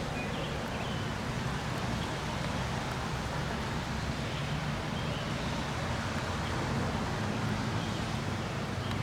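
Steady outdoor background noise, a low rumble and hiss, with a few faint high chirps.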